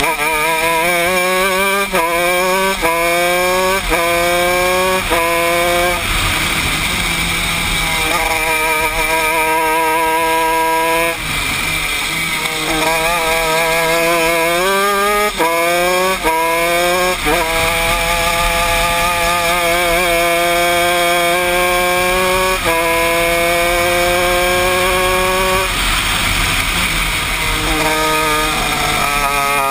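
Honda 125cc two-stroke single-cylinder shifter kart engine heard from on board at full race pace, revving up and upshifting through the gears, the pitch climbing and then dropping sharply at each shift. Several quick upshifts come in the first few seconds; twice the revs fall away for a corner before it pulls hard again with long rising runs.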